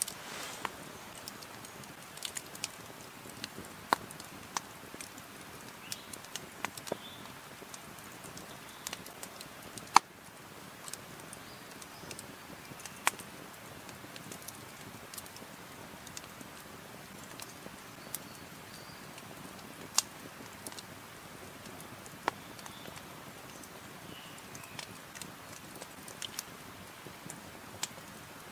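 Wood campfire crackling: sharp pops at irregular intervals of a second or several over a faint steady hiss, the loudest pop about ten seconds in.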